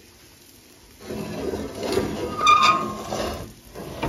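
Frying pan being moved on a gas stove's metal pan grate: metal scraping and rattling that starts about a second in, with a brief high squeak about two and a half seconds in.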